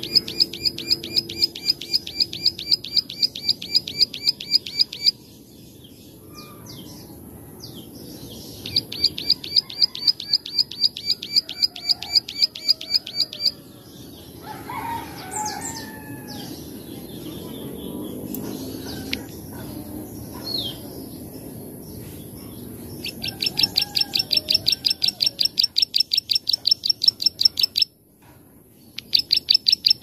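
Plain prinia (ciblek sawah) singing its 'klik-klik' song: long bouts of rapid, evenly repeated clicking notes, about five a second. Four bouts are separated by pauses of several seconds filled with softer, scattered chirps.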